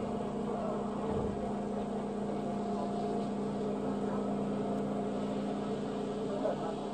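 Busan Metro Line 2 2000-series subway train heard from inside the car: a steady rumble with a constant low hum.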